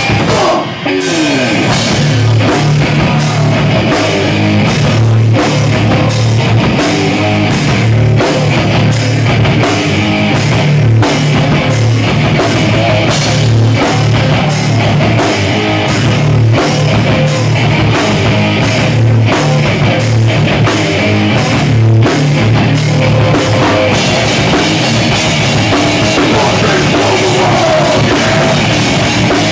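A hardcore band playing loud and fast, live: pounding drum kit, distorted guitars and bass, with a vocalist shouting into the microphone. The band drops out for a moment about a second in, then comes back in full.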